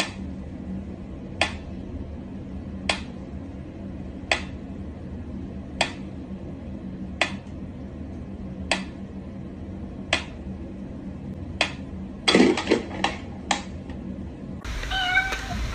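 Mechanical pendulum metronome ticking slowly, one sharp tick about every second and a half, over a faint steady hum. Around twelve seconds in comes a quick cluster of clicks and knocks, and near the end a cat's short meow.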